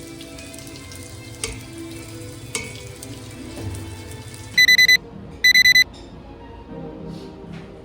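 Electronic beeper sounding two quick bursts of four high, pure beeps about halfway through, over soft background music.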